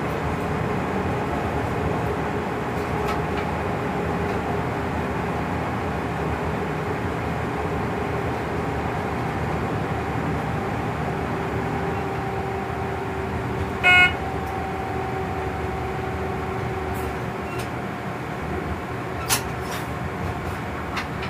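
Running noise inside the cab of a class 139 electric locomotive: a steady rumble with a motor and gear whine that slowly falls in pitch as the train slows. About two-thirds of the way in a short, loud toot sounds, and a couple of sharp clicks come near the end.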